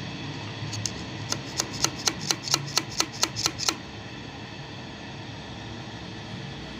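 A quick, even run of about a dozen sharp metallic clicks, about four a second, from hands working the metal parts of a Juki buttonhole sewing machine; the clicks stop a little past halfway.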